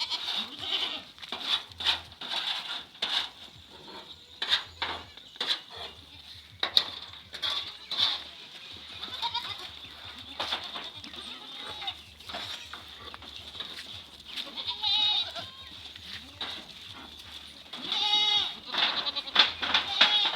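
Goats bleating, several separate calls with a wavering, shaky pitch, the longest near the end, among many short knocks and clicks.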